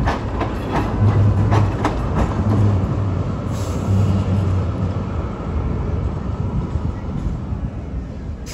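Oslo SL79 articulated tram passing at close range: its wheels click sharply over rail joints during the first two seconds, a low motor hum rises and falls, and the rolling noise then slowly fades as it goes by.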